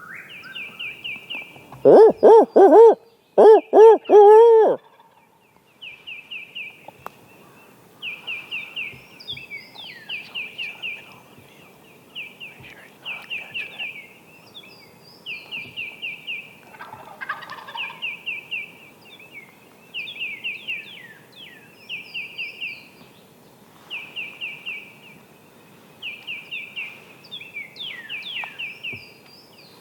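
Eastern wild turkey gobbling loudly from the roost, two gobbles in quick succession about two seconds in. A whip-poor-will's song then repeats about once a second throughout, high and thin.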